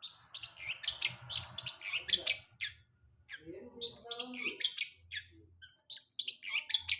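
Long-tailed shrike (cendet) singing: fast runs of sharp, high chirps and scratchy trills, broken by two short pauses.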